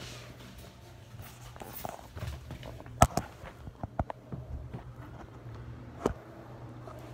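Soft footsteps and handling bumps from a handheld phone, with a sharp knock about three seconds in and further thumps near four and six seconds, over a low steady hum.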